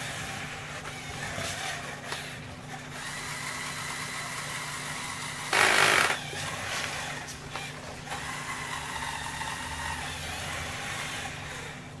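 Lego Technic road roller model's electric motor and gears running with a steady whine as it drives. About halfway through there is a loud burst of noise lasting about half a second.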